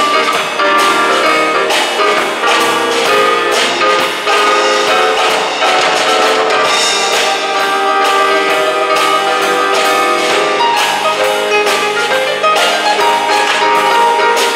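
Live jazz band playing an instrumental passage, without vocals, over a steady drum beat, with sustained melody and chord notes from the band's saxophone, keyboard, electric bass and drum kit.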